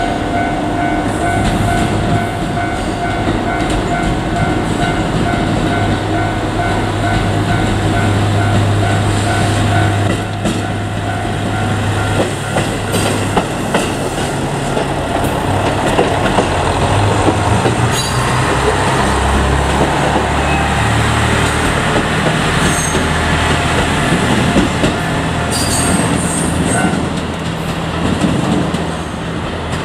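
JR Kyushu KiHa 200 diesel railcar passing over a level crossing, its diesel engine running and its wheels clacking over the rail joints. The crossing's warning bell rings in a repeated tone through roughly the first dozen seconds, and the train noise is densest in the second half.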